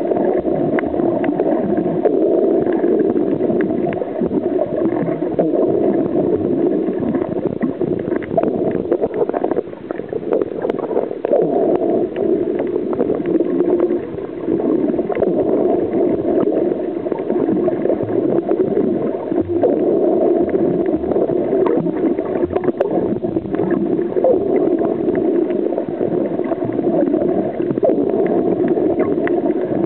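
Muffled underwater water noise picked up by a submerged camera: a steady, dense rumbling hiss with many faint crackling clicks scattered through it.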